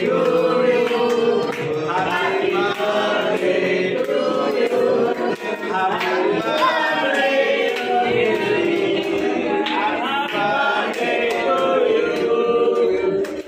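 A group of voices singing together, steady and loud throughout.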